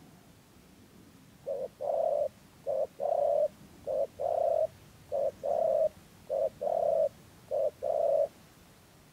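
Spotted dove cooing: six two-note phrases, each a short note followed by a longer one, repeating evenly about every second and a bit, starting about a second and a half in.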